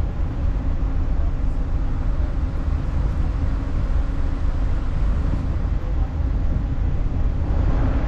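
Steady low rumble aboard a moving ferry, with a faint machinery hum running through it.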